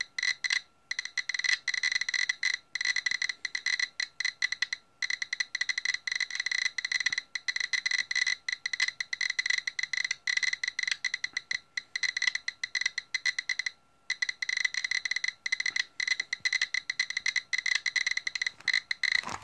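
GQ GMC-300E Plus Geiger counter clicking fast and irregularly, about fifteen to eighteen clicks a second with brief random gaps, as it counts around 900 to 1,100 counts per minute from the uranium-oxide glaze on orange Fiestaware.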